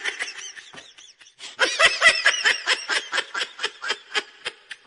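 High-pitched laughter: a fast run of short, repeated 'ha' pulses, easing off briefly about a second in, then picking up again strongly.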